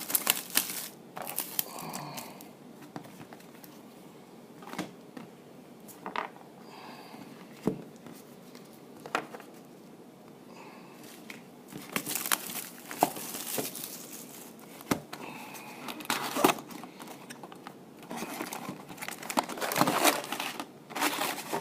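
Plastic wrapping on a box of 2013 Topps Magic football cards being torn open and crinkled, in irregular bursts with quieter handling between.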